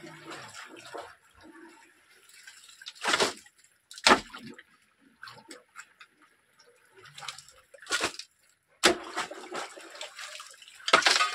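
Water splashing in a handful of short, separate bursts, with quiet gaps between them.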